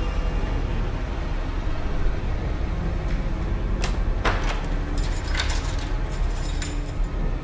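Two sharp clicks, then about two seconds of high metallic jingling like keys, ending in a sharp click, as a hand works at a wooden door, over a steady low hum.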